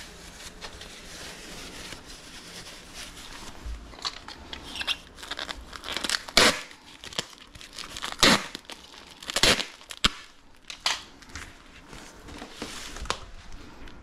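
Plastic packing material being handled: a run of irregular crinkling and tearing rustles, loudest in several short bursts in the middle.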